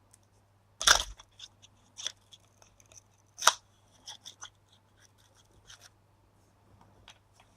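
Light clicks and scrapes of a circuit board being worked free from a small electronic device's casing, with a sharp knock about a second in and another about three and a half seconds in.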